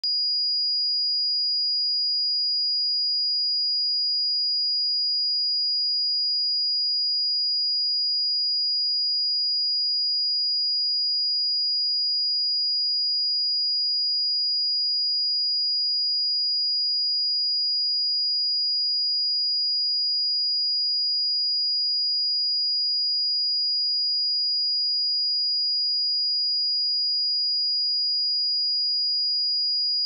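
Pure 4881 Hz sine-wave test tone, a single steady high-pitched tone held at a constant level.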